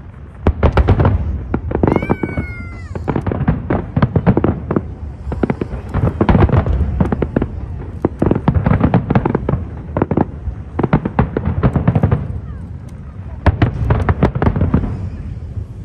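Aerial fireworks going off in quick succession: repeated booms with sharp crackling cracks. A brief falling whistle is heard about two seconds in.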